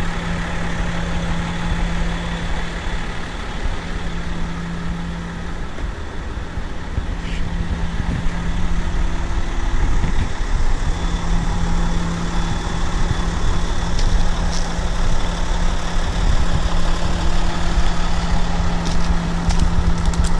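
Diesel engine of a Komatsu HM400-3 articulated dump truck idling steadily, a low even hum that grows a little louder after about eleven seconds.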